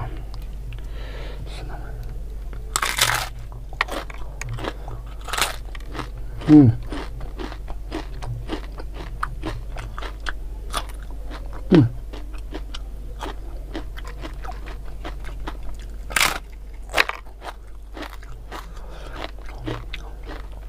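Crunching and chewing of crispy fried tempeh dipped in sambal, and bites of raw bird's eye chilies: a run of sharp crunches, loudest about three seconds in and again near sixteen seconds.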